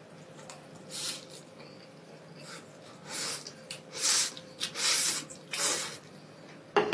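A person slurping spicy instant noodles in a run of short sucking slurps and breaths, with a sharp click near the end.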